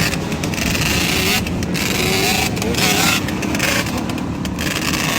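A vehicle engine running, its pitch rising and falling, under a loud rushing noise.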